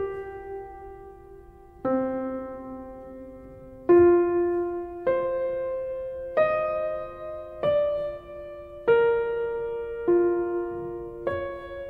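Background piano music: slow chords struck about every second and a quarter, each left to ring and fade before the next.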